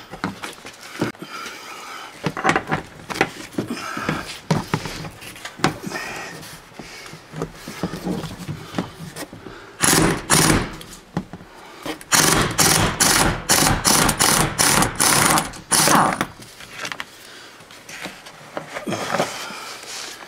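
Cordless impact wrench hammering in short bursts, about ten of them in quick succession after a single burst, as it works on the seat-mounting bolts. Before that, scattered clicks and knocks of tools being handled.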